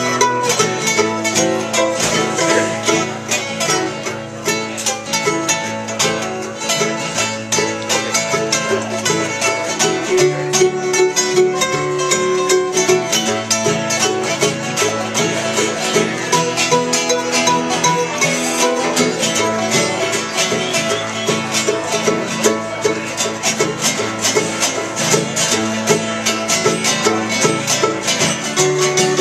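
Bluegrass music led by a banjo with rapid picked notes.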